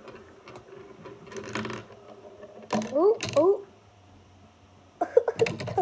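A marble rolling and clattering down a plastic marble run, with a run of sharp clicks near the end as it drops through the tubes. Two short rising vocal sounds come midway.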